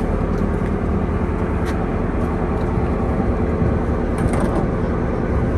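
An engine running steadily with an even low hum, with a few light clicks over it.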